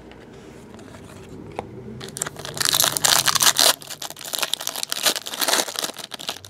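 A foil Bowman Chrome baseball-card pack being torn open and crinkled by hand. About two seconds in, loud crackling starts in quick irregular bursts and keeps going.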